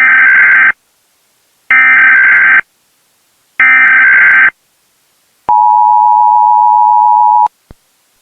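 Emergency Alert System SAME header: three loud bursts of warbling data tones, each just under a second, followed by the two-tone EAS attention signal held for about two seconds. Together they mark the start of a new tornado-emergency alert.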